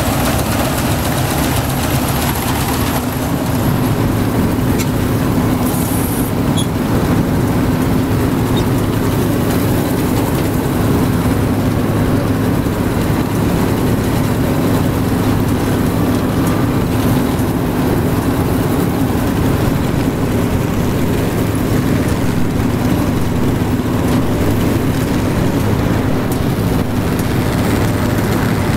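Claas Matador Gigant combine harvester running steadily under load as it harvests, its engine and cutting and threshing machinery giving a constant loud drone, heard from the open driver's platform.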